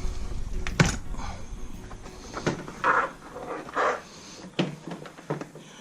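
Plastic car door trim panel being handled and hung back onto the door. There is a sharp click about a second in, then scattered soft knocks and scrapes, with a few heavy breaths.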